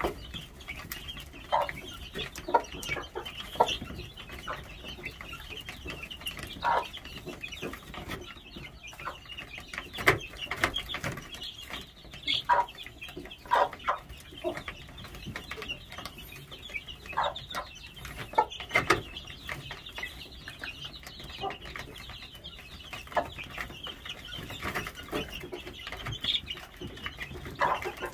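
Young game chickens clucking and peeping: many short, overlapping calls at no steady rhythm over a constant high cheeping.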